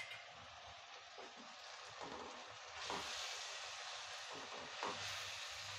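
Faint sizzling of onion-tomato masala in a stainless steel pot as a steel spoon stirs fresh fenugreek leaves into it, with a few soft spoon scrapes against the pot. The sizzle grows louder about three seconds in, once the stirring starts.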